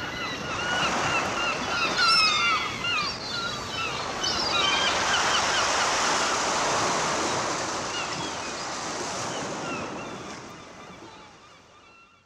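Gulls calling repeatedly over the rush of surf. The calls thin out after about four seconds while the waves grow louder, then the sound fades out near the end.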